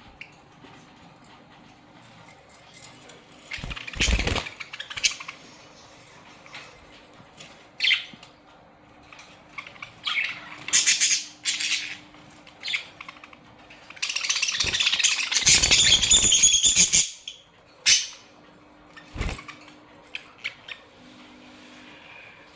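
A colony of budgerigars chirping and chattering in short bursts, with several loud flurries of wing flapping. The longest flurry comes a little past the middle and lasts about three seconds.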